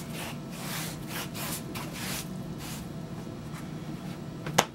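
Hands rubbing water into a piece of leather, a series of irregular scuffing strokes that dampen it for working. A single sharp click near the end.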